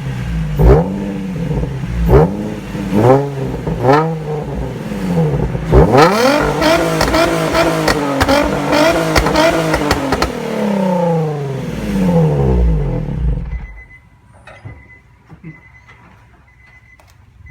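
Nissan 350Z's 3.5-litre V6 exhaust, fitted with Berk resonated test pipes in place of the catalytic converters, revved in four quick blips. Then it is held at higher revs for a few seconds and allowed to fall back. The sound drops away about three-quarters of the way through, leaving faint clicks.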